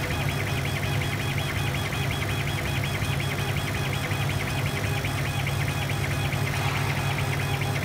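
Gweike LC1390N CO2 laser cutter running while engraving plywood: a steady low hum with a high whine above it that pulses in a quick, even rhythm, several times a second, as the laser head sweeps back and forth.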